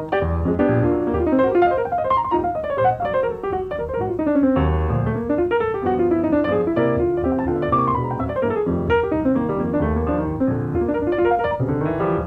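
Solo jazz piano playing a fast bebop tune: quick running lines in the right hand, several of them falling, over left-hand chords and bass notes.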